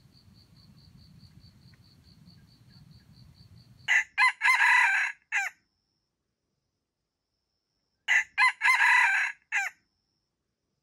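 Red junglefowl rooster crowing twice, about four seconds apart, each crow a short, clipped call of a few quick notes with a longer middle note. Before the first crow, a faint insect trill pulses about five times a second.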